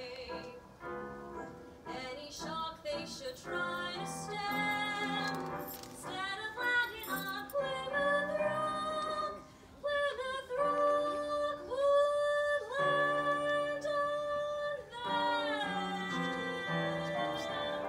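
Mixed choir of women's and men's voices singing in harmony, holding long notes, with a brief pause about nine and a half seconds in.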